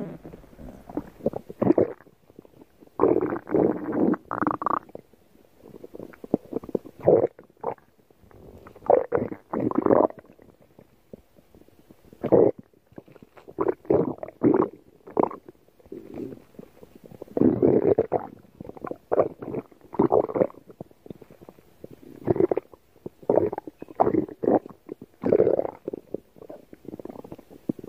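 Stomach growling with hunger: irregular gurgling rumbles in bursts of one to two seconds, with short pauses between them.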